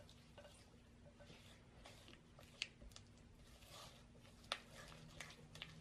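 Silicone spatula mashing and stirring cream cheese and granulated sugar against a glass bowl: faint scraping and squishing with scattered clicks of the spatula on the glass, two of them sharper, a little before halfway and again past three-quarters of the way through.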